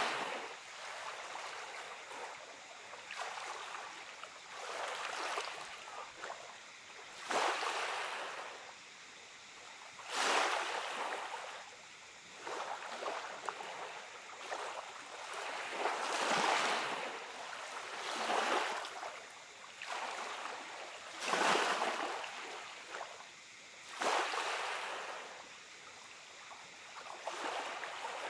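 Small, gentle sea waves breaking and washing up the beach, one wash every two to three seconds.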